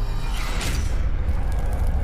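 Logo-intro music and sound effects: a deep, steady rumble with a whoosh that swells about half a second in.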